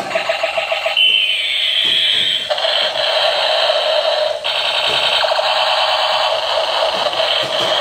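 Battery-operated toy F-16 fighter jet playing its electronic sound effects through a small speaker. There is a fast pulsing beep, then a falling siren-like sweep about a second in. After that comes a steady, rapidly warbling buzz, briefly broken about four and a half seconds in.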